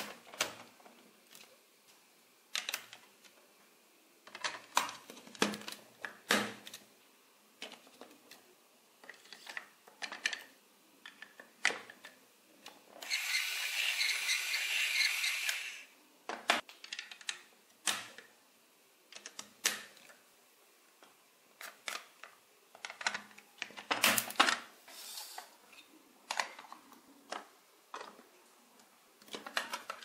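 Large plastic building bricks and gear pieces clicking and knocking as they are handled and snapped together, in scattered single clicks and short clusters. About halfway through comes a rattling scrape of plastic parts lasting about three seconds.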